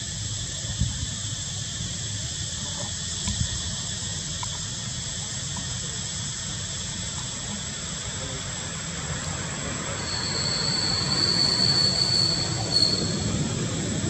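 Outdoor ambience of a steady high insect drone over a low rumble. About ten seconds in, a louder, higher steady whine starts and holds for about three seconds before cutting off.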